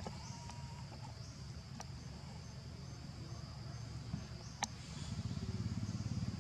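Steady chirring of insects in the forest, over a low rumble, with two sharp clicks, about two and four and a half seconds in.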